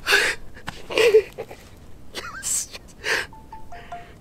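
A man breathing hard in loud, breathy gasps about once a second, a couple of them voiced, out of breath and overwhelmed after running up to a bull elk he has just shot. Near the end come a few short beeps.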